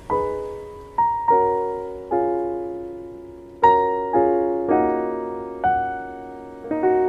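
Background piano music: slow, gentle notes and chords struck one after another and left to ring and fade.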